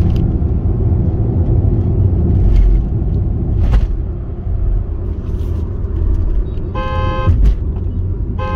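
Steady road and engine rumble inside a Tata Altroz petrol hatchback cruising in fifth gear at about 78 km/h. A vehicle horn sounds about seven seconds in for over half a second, and again just before the end.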